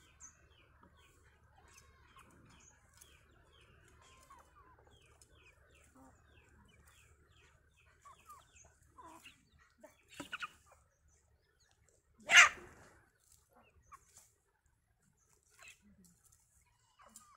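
Domestic chickens calling: a run of quick, evenly repeated high peeps, about three a second, through the first six seconds, then scattered clucks. One loud, short sound about twelve seconds in stands out above them.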